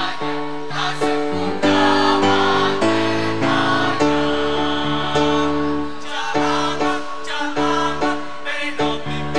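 Mixed school choir of girls and boys singing together, holding sustained notes that change every second or so.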